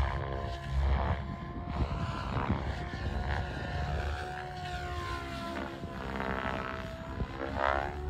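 SAB Piuma electric RC helicopter in flight: the rotor blades whoosh and the motor and rotor whine rises and falls in pitch as it manoeuvres.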